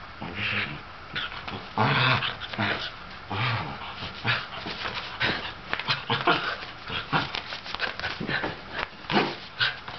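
Sable Shetland sheepdog making short, repeated vocal play noises, mixed with sharp clicks.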